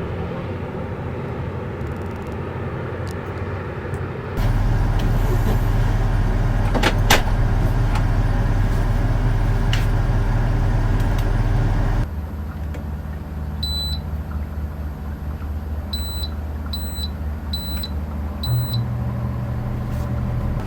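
Motor vehicle running steadily, with a low hum that becomes clearly louder for about eight seconds and then drops back. Near the end there are five short high-pitched beeps about a second apart.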